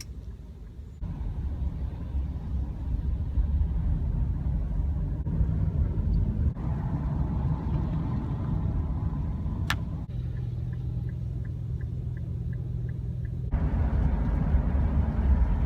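Steady low rumble of a motor vehicle, with one sharp click about ten seconds in followed by a few seconds of faint quick ticking, about three a second.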